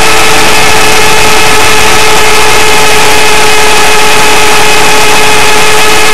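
Align T-Rex 500 electric RC helicopter heard from a camera mounted on the model: its brushless motor and gear drive whine at a steady pitch over a dense rush of rotor and air noise. The sound is loud enough to overload the recording throughout.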